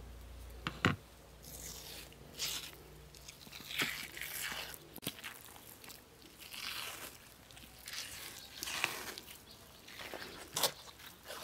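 Crisp food being cut or broken: irregular crunching strokes with a few sharp knocks.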